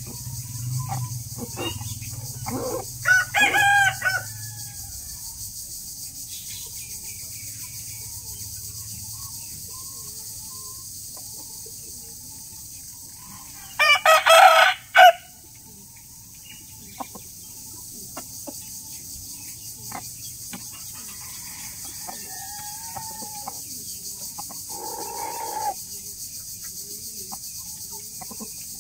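Roosters crowing: a crow about three seconds in and a louder one about halfway through, with softer, shorter calls near the end.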